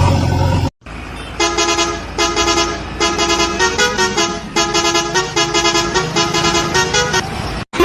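A vehicle engine sound cuts off abruptly under a second in. After a short gap, a musical horn plays a tune of short honking notes at a few different pitches.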